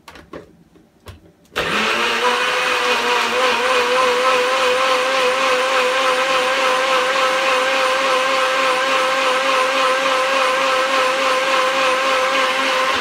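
A NutriBullet blender's motor blends kale and water into a puree. After a few clicks, the motor starts about a second and a half in and runs steadily with a high whine whose pitch wavers slightly, then stops near the end.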